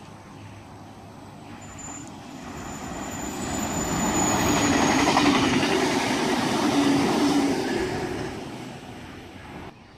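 Double-deck electric passenger train passing close by on the line, its rumble building to a peak in the middle and fading as it goes. A thin high-pitched squeal comes from it as it approaches, and the sound cuts off abruptly near the end.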